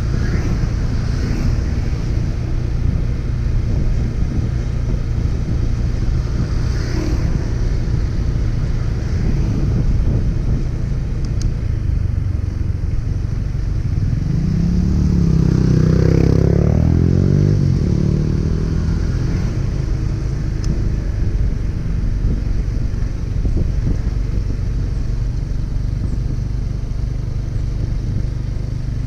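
Steady low rumble of traffic and wind while riding along a street, with a motorcycle passing close by about halfway through, its engine note swelling and fading.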